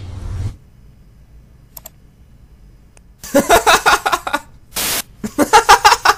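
A man laughing loudly in quick rhythmic bursts, twice, broken between them by a short burst of static-like hiss.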